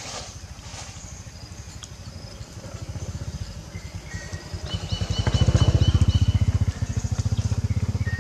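A small engine running with an even low putter, growing louder about five seconds in and then holding steady.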